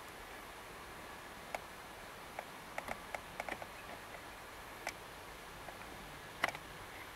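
Faint steady hiss broken by scattered small, sharp clicks, a few in quick clusters, with the loudest click near the end.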